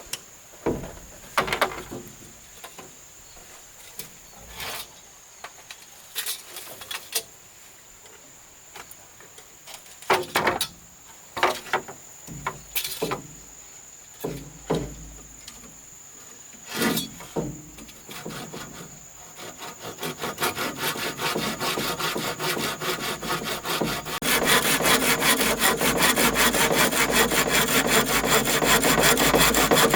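Wood being handled, with scattered knocks and scrapes. Then a saw cutting wood starts up and settles into fast, even strokes about two-thirds of the way through.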